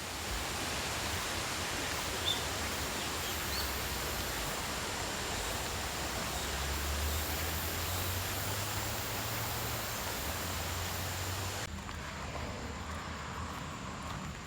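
A low, wide waterfall (about 4 m high and 30 m across, falling in two tiers over a broad rock slab) rushing with a steady, even noise. Near the end the rush becomes a little softer and duller.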